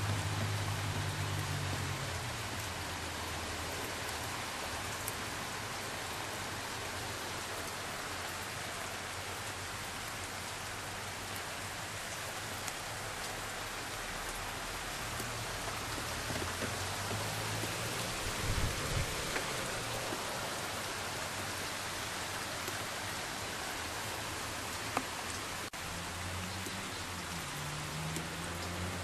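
Typhoon rain falling steadily, a dense even hiss. A low rumble comes in at the start, again around the middle and near the end.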